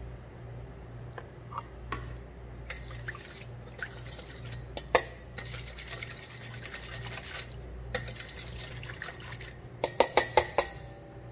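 Wire whisk stirring a thin liquid in a stainless steel bowl, its wires scraping and clinking against the metal, with one sharp knock about five seconds in. Near the end the whisk is knocked sharply against the bowl about five times in quick succession.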